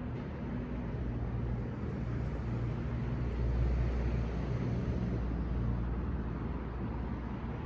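Steady low rumble of a motor vehicle running, swelling slightly about halfway through.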